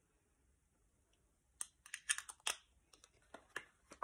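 Makeup packaging being handled. After about a second and a half of near quiet comes an irregular run of light clicks and taps as items are handled and set down.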